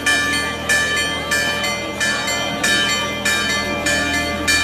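A bell struck in a steady rhythm, about three strokes every two seconds, each stroke ringing on into the next.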